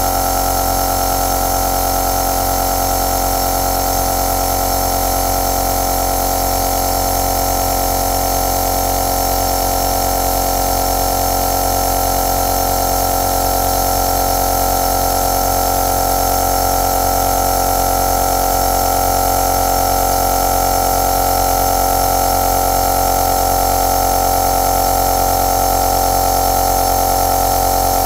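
Compressor nebulizer running steadily: its small electric compressor gives an unbroken buzzing hum with one strong steady tone, over a hiss of air through the nebulizer.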